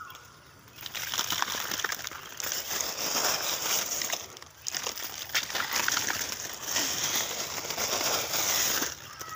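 Close rustling and crackling of dry coconut palm fronds and leaf sheaths brushing against the phone at the crown of the palm, full of small snaps, with short lulls at the start and about four and a half seconds in.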